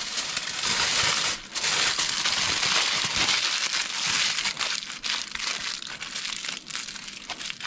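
Aluminium foil crinkling and crackling as it is folded and scrunched around beetroots, busiest in the first few seconds and softer toward the end.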